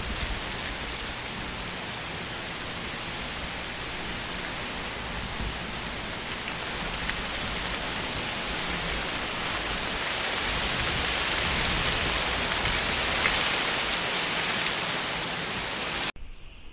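Steady rain falling, a dense even hiss that grows heavier through the middle and later part, then cuts off abruptly just before the end.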